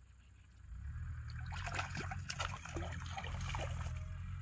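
A hooked fish thrashing at the water surface: a run of small splashes and spatters starting about a second in, over a low rumble.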